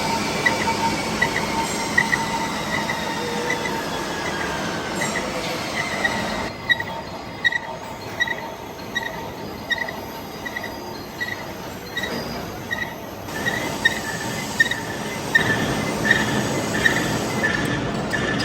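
Metal-cutting machine tool working a steel part, with a short high squeal repeating about every 0.7 s over the steady cutting noise. A higher tone falls slowly in pitch over the first few seconds.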